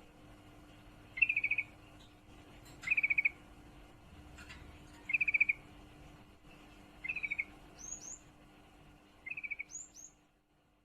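Female yellow-vented bulbul (trucukan) giving short, rapid chattering trills, five of them about every two seconds: the call of a hen in breeding condition calling for a male. Two brief high, upward-flicking notes come near the end.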